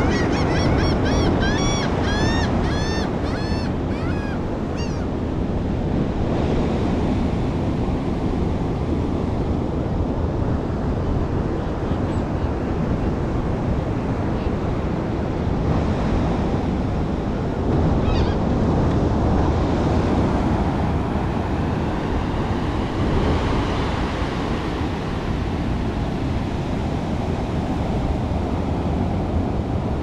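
Gulls calling in a quick series of rising-and-falling cries for the first few seconds, with a short cry later on, over steady surf and wind buffeting the microphone.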